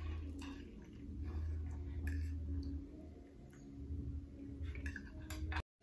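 Faint, scattered clicks of a fork and knife against a plate while eating, over a low steady hum.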